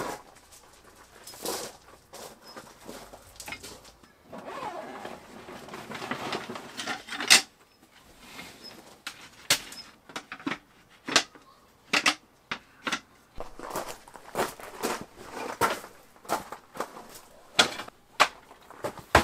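Camping gear being handled and set up: a run of separate knocks and clatters, with a stretch of rustling and scraping a few seconds in.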